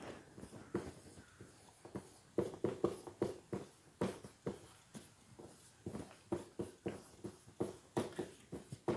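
Marker pen writing on a whiteboard: a quiet run of short, irregular strokes and taps.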